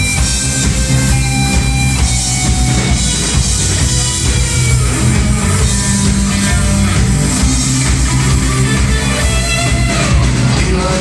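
Rock-style music: guitar over drums with a steady beat, no vocals.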